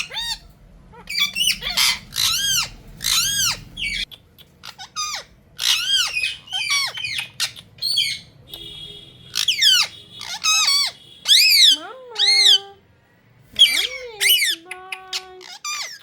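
Indian ringneck parakeet calling: runs of short, shrill squawks, each rising then falling in pitch.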